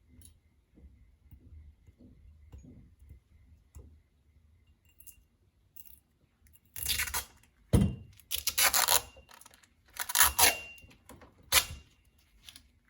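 Protective tape being pulled off a motorcycle fork tube: faint handling at first, then several loud tearing pulls in the second half.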